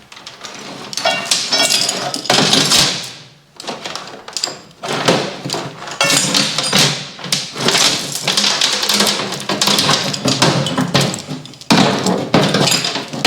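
Irregular workshop clatter of metal being knocked and scraped, in bursts lasting about a second each, with a few sharp knocks that ring briefly.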